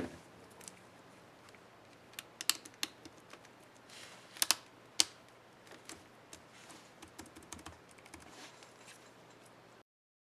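Laptop keyboard keys on an HP Stream 11 clicking under a finger: a scattered run of sharp clicks, the loudest a couple of seconds in and again about halfway, with lighter taps after. The sound cuts off just before the end.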